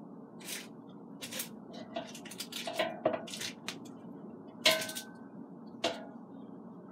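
Metal tongs clinking and scraping against an air fryer basket while turning chicken wings: a string of irregular clicks, the two loudest a little past the middle.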